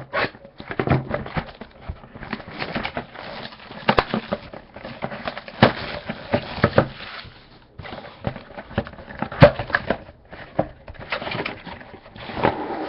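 Packaging of a sports-card hobby box being torn open and handled: irregular crinkling and rustling with sharp clicks and taps, a few of them loud.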